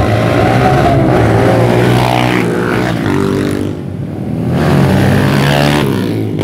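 Trail motorcycle engines revving hard under acceleration, the pitch climbing through the gears again and again. One dirt bike grows louder as it comes closer, is loudest about five seconds in, then fades as it passes.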